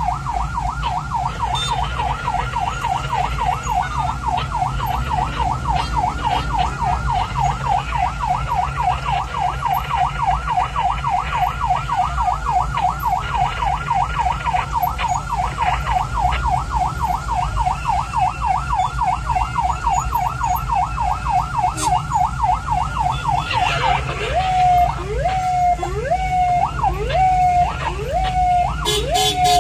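Ambulance siren heard from inside the vehicle, running a rapid yelp that warbles about four times a second. With about six seconds left it switches to a slower pattern of sharp rising sweeps, roughly one a second. A steady engine and road rumble runs underneath.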